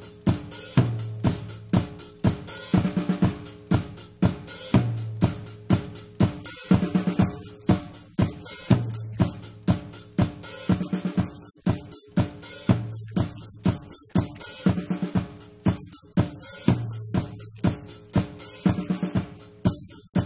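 Recorded drum kit playing a steady beat: kick drum, snare and fast hi-hat, in a pattern that repeats about every two seconds.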